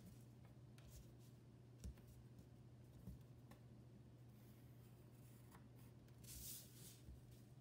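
Near silence over a low steady hum, with a few faint light ticks and a brief paper rustle about six seconds in, as a card template is handled and slid on a sheet of drawing paper.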